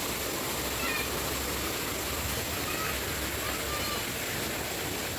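Steady rush of flowing water, with a few faint, short high chirps scattered through it.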